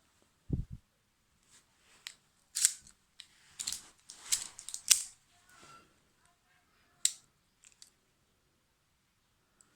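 Gerber MP600 multi-tool being handled: a dull thump about half a second in, then a scattered run of sharp metal clicks and snaps from its parts opening, closing and seating.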